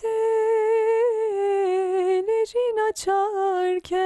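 Unaccompanied Turkish female vocal, one voice holding long ornamented notes that waver and step down in pitch, with a few brief breaks for breath, heard through a Warm Audio WA76 compressor.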